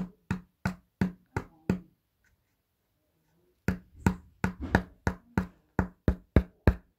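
Rapid, evenly spaced knocks on a hard object, each with a short ring, about three a second. They come in two runs, stopping just before two seconds in and starting again a little over three and a half seconds in.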